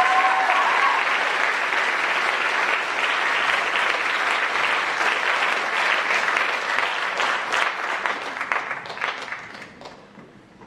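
Theatre audience applauding, with a short whistle near the start. The applause thins into scattered claps and dies away near the end.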